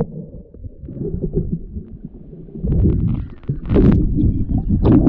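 Muffled low rumbling and sloshing of surf water around a small boat, with short hissing rushes of water about four seconds in and near the end.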